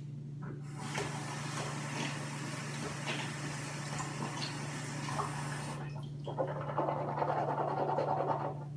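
Water running from a bathroom tap into the sink with splashing. It stops briefly about six seconds in, then comes back louder.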